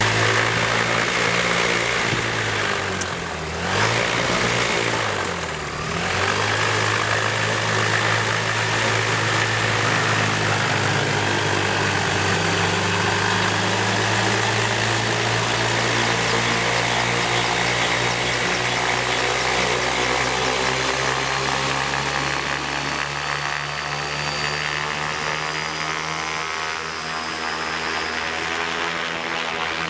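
Yamaha Genesis RX1 143 hp four-cylinder four-stroke snowmobile engine, converted to power a gyroplane, running steadily and driving its pusher propeller. Twice, a few seconds in, the engine speed drops sharply and comes straight back up; later the sound eases slightly as the gyroplane moves off.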